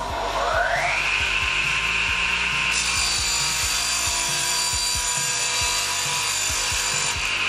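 Mitre saw switched on, its motor spinning up to a steady whine within about a second. From about three seconds in its circular blade cuts through a plywood board for roughly four seconds, then the saw runs free again.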